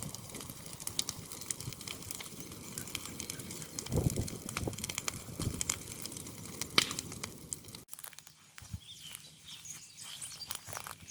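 Dry hay burning with dense, irregular crackling. The sound cuts off abruptly about eight seconds in, leaving quieter scattered ticks.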